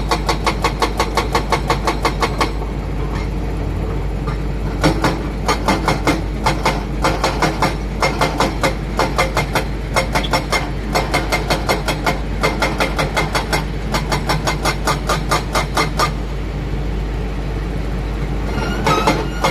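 Heavy diesel engine running with a rapid, regular pulsing clatter, about five or six beats a second, which softens twice and comes back.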